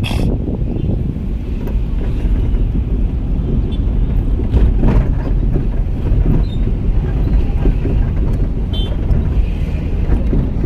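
Steady low road and engine rumble of a car in motion, heard from inside the cabin, with a couple of light knocks.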